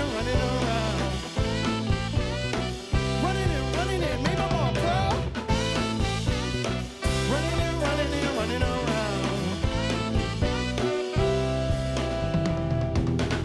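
A band playing a song over a steady beat, with a sung line bending up and down above the bass.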